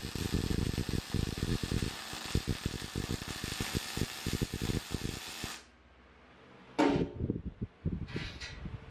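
MIG welding arc from a Mastroweld MIG-250MI welder, crackling and sizzling steadily while a bead is run on the steel tube frame. It cuts off abruptly a little past halfway, then one sharp knock and a few lighter knocks follow.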